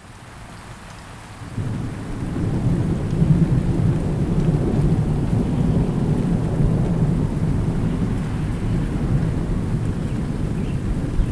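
Light rain hissing, with a few faint drops ticking, and a deep thunder rumble that comes in sharply about a second and a half in, swells to its loudest soon after and keeps rumbling on.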